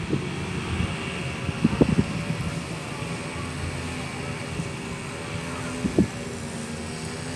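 Steady outdoor background noise with a faint, even mechanical drone, and a couple of short knocks, one about two seconds in and one near the end.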